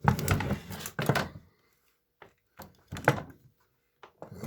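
Hands handling a chainsaw's plastic housing and fuel parts while pushing the fuel filter back into the tank: a cluster of knocks and clatter at the start, then scattered lighter knocks and another clatter about three seconds in.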